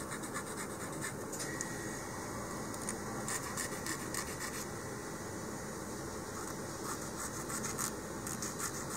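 Small hobby file scraping in short, uneven strokes along the edge of a laser-cut model-rocket fin, smoothing off the burrs left where the fin was cut from its sheet.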